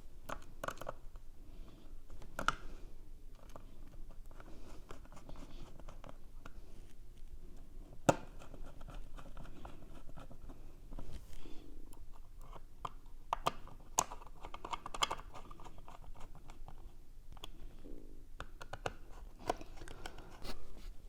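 Small Phillips screwdriver driving the SSD's retaining bracket screws back into a MacBook Pro, with light scratching of the tool and parts being handled. A few sharper clicks come through, the loudest about eight seconds in.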